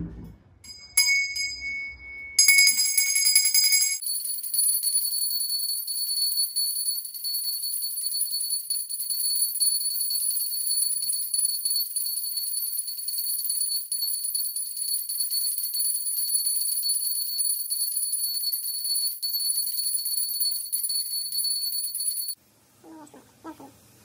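A metal puja hand bell rung during worship: a few separate strikes at first, then a steady, unbroken high ringing for about eighteen seconds that stops suddenly near the end.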